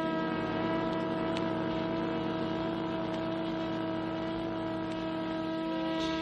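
Jazz ensemble holding one long steady note, with a quieter lower note pulsing evenly beneath it.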